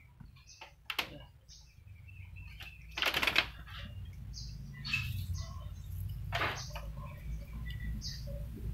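Short rattles and clicks from a plastic container as fried shallots are shaken onto a bowl of sauced tofu, the loudest cluster about three seconds in. Short bird chirps repeat in the background.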